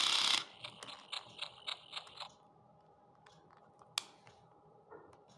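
Knock-off Furby toy's loud electronic sound cutting off just after the start, then its internal motor and gears clicking in a quick even run of about eight ticks over two seconds as the mechanism moves. After that a faint steady hum and a single sharp click about four seconds in.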